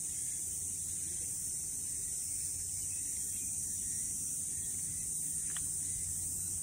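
A steady, high-pitched chorus of insects, an even shrill hiss that does not change.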